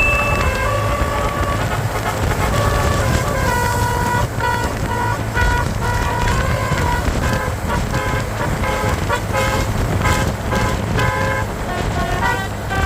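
Tour bus's basuri horn playing a tune, a sequence of held and quicker horn notes, over the low rumble of the bus.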